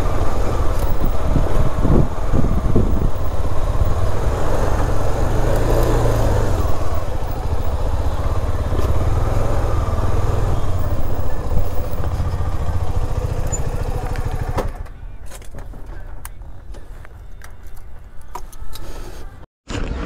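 KTM motorcycle engine running as the bike rolls slowly, with a steady low rumble; it is shut off about three-quarters of the way through, leaving a quieter stretch with a few faint clicks.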